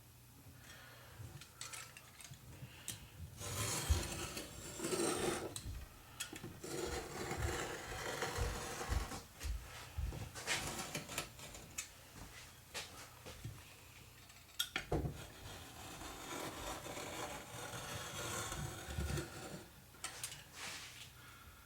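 Irregular rubbing and scraping strokes from hand work on a piece of a craft shield, with scattered light knocks. It starts a few seconds in and eases off near the end.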